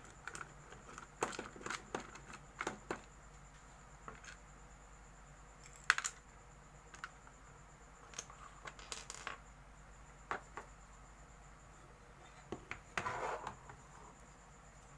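Scattered small clicks, taps and scrapes of a motherboard's heatsink retention bracket being unscrewed and handled, with a longer scraping rustle near the end.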